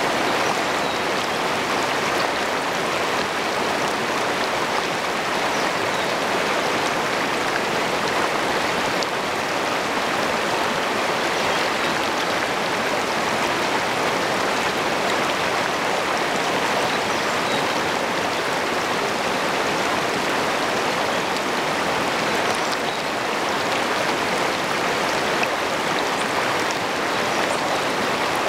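Shallow river rapids rushing and splashing over rocks right at the microphone, a steady unbroken roar of white water.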